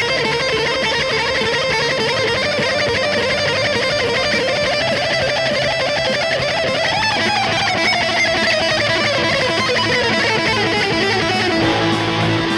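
Guitar played as a fast lead solo: a quick, continuous run of notes with bends. Near the end it settles onto a held note.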